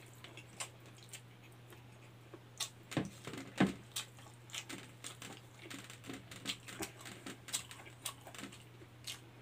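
Eating sounds of a person chewing rice and fish with his mouth full: irregular soft wet clicks and lip smacks, with two louder smacks about three and three and a half seconds in, over a steady low hum.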